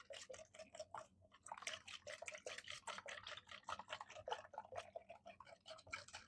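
Wire whisk beating egg whites by hand in a bowl: quick, even, wet clicking and sloshing strokes, several a second, as the whites begin to froth.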